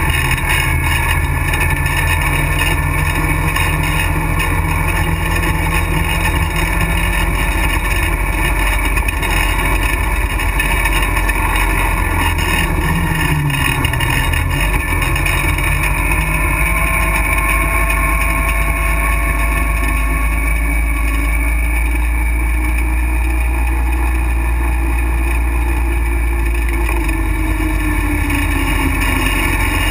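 Motorcycle riding on wet pavement, heard from low on the front fork: the engine runs under a heavy low rumble of wind and road noise. Its pitch dips about halfway through, then climbs again as the bike picks up speed, with further rises and falls near the end.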